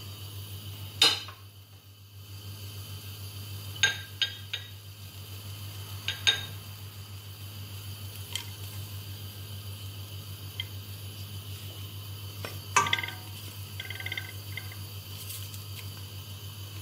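Glass bowl and wooden spoon knocking and clinking against a stainless steel cooking pot as chopped onion, garlic and ginger are tipped in and stirred. The sharp knocks come one at a time, the loudest about a second in, with a quick cluster of ringing clinks about three-quarters of the way through, over a steady low hum.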